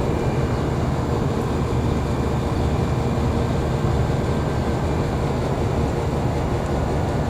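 A 2003 Trane 5-ton straight-cool commercial condensing unit running: a steady low compressor hum under the even rush of its condenser fan, with a faint constant tone.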